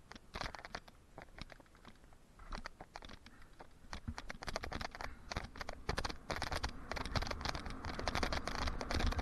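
Mountain bike rolling along a dry dirt trail: the tyres crunch over grit and small stones with dense clicking and rattling, growing louder from about four seconds in as the bike picks up speed. A low wind rumble on the microphone builds toward the end.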